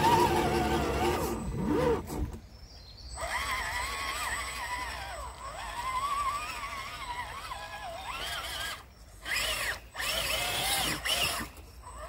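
Electric motor and gear drive of an RC crawler whining, the pitch rising and falling with the throttle and breaking off briefly several times.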